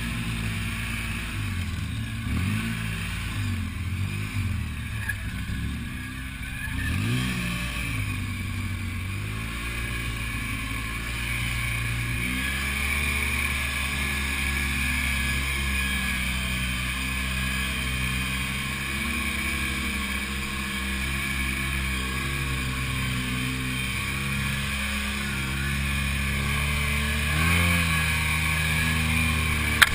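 Side-by-side off-road vehicle engine heard from inside the cab while driving. The engine revs up and down several times over the first dozen seconds, then runs at a steadier speed with a short rise near the end.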